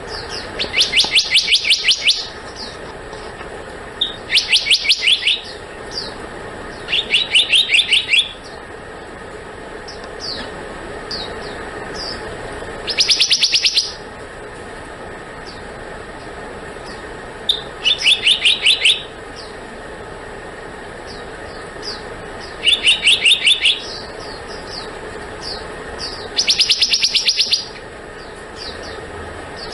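Black-naped monarch calling: seven quick runs of sharp, evenly repeated high notes, each lasting about a second and spaced a few seconds apart, with short single chirps between them. A steady low hum runs underneath.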